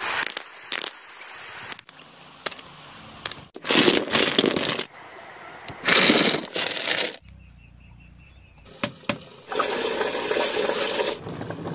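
A string of short work sounds: river stones knocking and clattering against each other as they are gathered and tipped out of a basket onto a concrete floor, then wet mortar sliding as it is poured.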